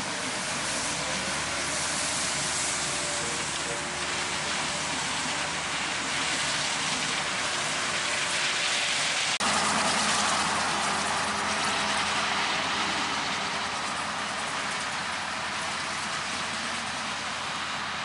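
Steady machine drone of a Claas Lexion 740TT combine harvesting corn, its engine and threshing machinery running together. About halfway it cuts abruptly to a slightly louder engine drone from a tracked tractor pulling a grain cart.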